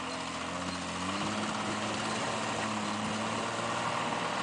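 Off-road truck's engine revving up over about the first second, then running steadily at higher revs.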